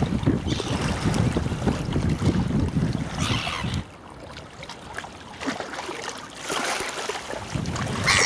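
Wind gusting on the microphone over lapping lake water, the gusts dropping away suddenly about four seconds in. Black-headed gulls call briefly now and then.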